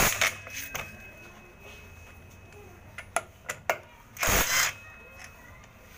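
Cordless Vanderbilt impact wrench hammering in short bursts on a nut: one burst right at the start, a few sharp clicks around three seconds in, then another burst of about half a second just past four seconds in.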